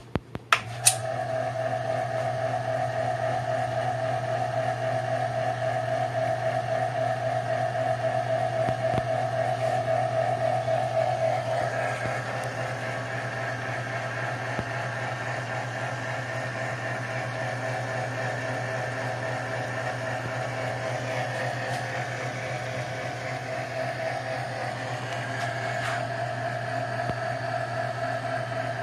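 Taig micro lathe, driven by a GE electric motor, starting with a click of the switch and then running steadily with no cut being made: a low motor hum with a steady whine above it. The sound eases slightly about twelve seconds in.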